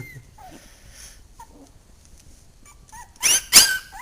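Two-week-old puppy whining: a few faint squeaks, then two loud, high-pitched whines near the end.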